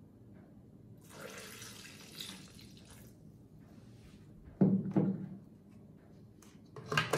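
Milky liquid poured from a glass into a plastic Philips blender jar onto banana and durian pieces, splashing for about two seconds. Two loud knocks follow about halfway through as the glass is set down, and there are more knocks near the end as the lid is fitted onto the jar.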